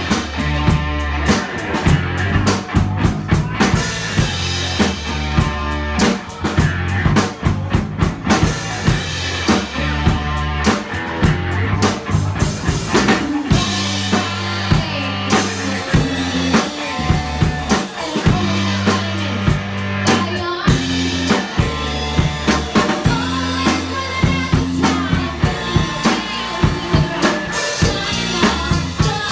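Live rock band playing with a drum kit, electric bass and electric guitar, the drums driving a steady beat throughout.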